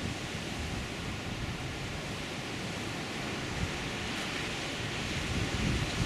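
Sea surf breaking on volcanic rocks and washing toward a pebble shore: a steady rushing, with some wind rumbling on the microphone.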